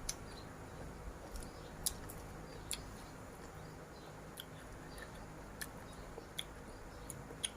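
Faint chewing of crisp food, with scattered small clicks roughly once a second.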